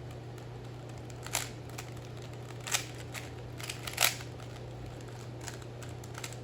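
Rubik's Cube being solved by hand: the plastic layers being turned, with irregular clicks and clacks, three louder ones about 1.3, 2.7 and 4 seconds in, over a steady low hum.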